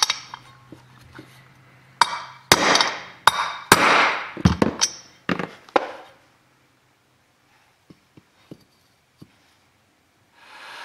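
A series of sharp metal knocks from a driver tool being tapped down in the bearing bore of an aluminium Minarelli water pump housing, seating the spacer against the bearing, clustered from about two to six seconds in. Near the end a heat gun starts blowing steadily.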